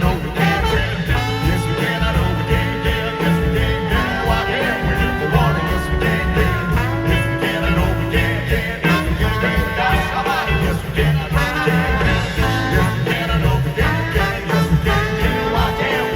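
Live brass-rock band led by trombones playing an instrumental passage: held horn chords over a steady drum and bass beat.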